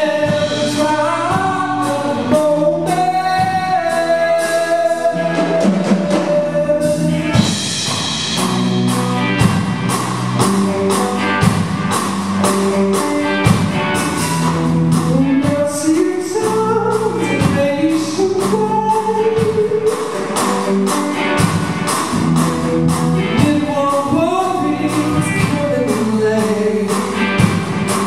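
Live band music: a male lead singer sings a melody over electric guitars and a drum kit keeping a steady beat.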